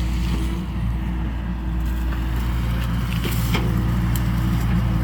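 John Deere excavator's diesel engine running steadily, with a few light knocks and clicks a little past halfway.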